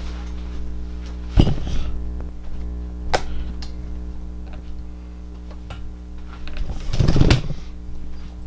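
Camera being handled and repositioned on a desk: a knock about a second and a half in, a lighter click a little later, and a longer, louder clatter near the end, over a steady low hum.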